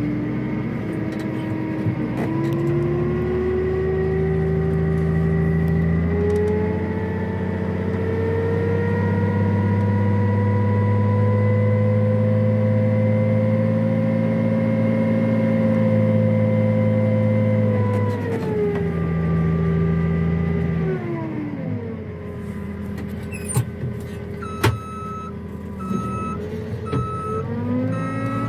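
Diesel engines of sugarcane harvesting machinery running under load, with a whining tone that climbs slowly and then drops away about two-thirds of the way through. Near the end a reversing alarm starts beeping repeatedly.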